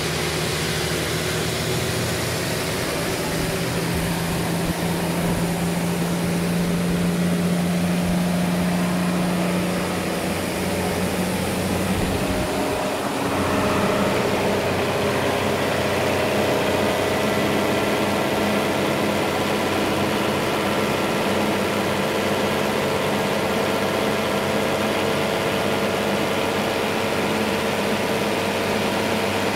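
Sawmill engine running steadily; its note shifts about halfway through.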